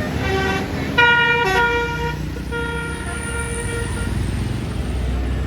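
A tour bus's basuri 'telolet' melodic air horn plays a short tune of held notes, loudest from about a second in, and stops at about four seconds. Under it runs the low rumble of the bus engine.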